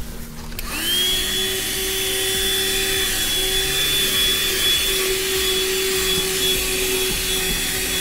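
A 12-volt handheld car vacuum cleaner switching on under a second in, its motor whine rising quickly to a steady pitch, then running steadily with an even hiss of air.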